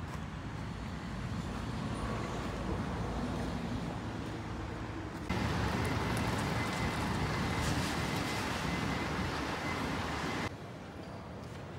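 Road and vehicle ambience with a steady noise. About five seconds in it jumps louder to the steady running noise of a small shuttle bus waiting at a stop, with a faint steady high whine. It drops back down about a second before the end.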